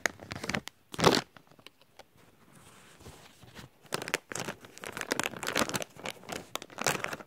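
A plastic blind-bag toy packet being crinkled and torn at while someone struggles to open it. There is one loud rip about a second in, then a few seconds of quick crinkling and tearing near the end.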